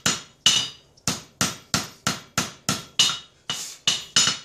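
Blacksmith's hand hammer striking a glowing bar of chainsaw chain on an anvil, about three blows a second with a short metallic ring after each, with a brief pause near the start. The blows are working the billet solid, so the chain becomes one piece.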